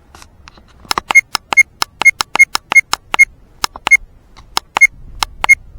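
A quick, uneven run of sharp, ringing clicks, about three or four a second, starting about a second in.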